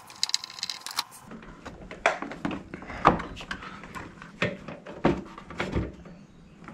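Metal tools clinking briefly, then a series of irregular knocks and clacks about a second apart as a screw is worked out of a motorcycle's plastic side panel and the panel is handled.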